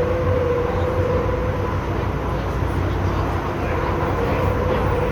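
MTR M-train electric multiple unit running between stations, heard on board: a steady rumble of the car on the track with a traction-motor whine that drifts slowly down in pitch.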